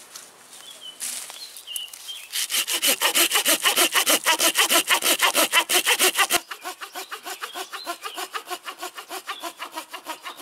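Hand saw cutting through a moss-covered fallen branch in quick, even back-and-forth strokes. The strokes are loud at first and quieter from about six seconds in. A few short bird chirps come before the sawing starts.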